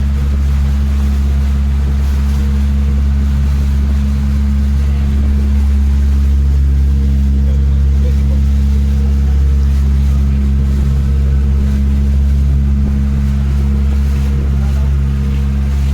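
Motorboat engine running at a steady speed: a constant low drone with a faint hiss of water and air over it.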